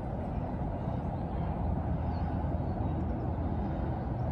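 Steady rumble of distant freeway traffic.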